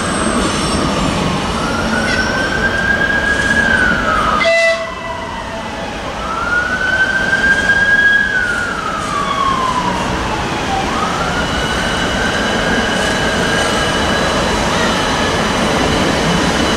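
A slow-moving train of coupled locomotives, led by a ČD class 380 electric, rolling past with a steady rumble. Over the rumble a high whine glides up and falls back every few seconds. The sound dips briefly about four and a half seconds in.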